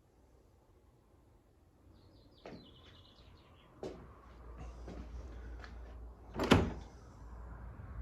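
An old door squeaking and knocking as it is pushed open, with one loud bang about six and a half seconds in.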